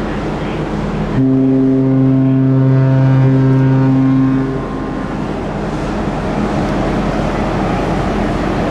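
Ferry's ship horn giving one long, steady low blast of a bit over three seconds, starting about a second in. Under it is a continuous rumble of wind and ship's engines.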